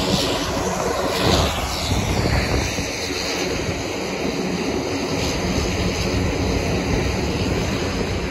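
Light propeller aircraft engine running, mixed with wind noise on the microphone. A falling sweep in pitch about a second in gives way to a steady rumble.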